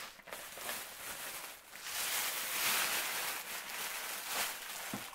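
Plastic packaging bag rustling as it is pulled back off a flat-screen TV, loudest in the middle, with a light knock near the end.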